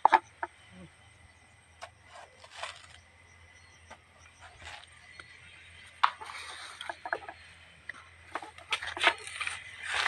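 Footsteps and rustling through dry grass and leaves, in irregular bursts of short crackles and scrapes.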